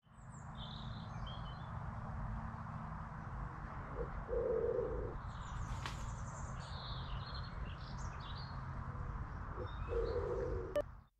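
Birds chirping and singing over a steady low rushing background. A lower call sounds twice, each about a second long, once near the middle and once near the end.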